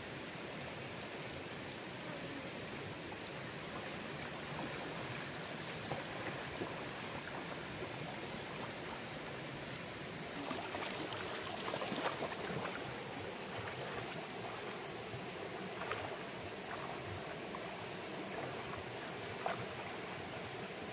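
Steady rush of flowing stream water, with a few brief sharp sounds standing out over it, most of them around the middle.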